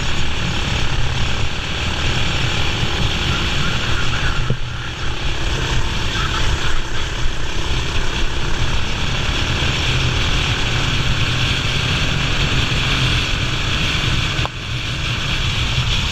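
A racing kart's engine running hard, heard onboard under heavy wind rush on the microphone. The sound dips briefly twice, about four and a half seconds in and again near the end.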